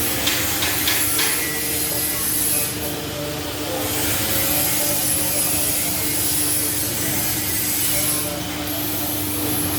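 Hydraulic can press's electric pump motor running steadily with a constant hum, with a few short clicks in the first second.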